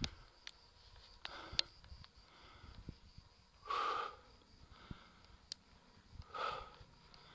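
A unicycle rider breathing hard, three strong breaths about two and a half seconds apart, the one about four seconds in the loudest, with a few faint clicks between.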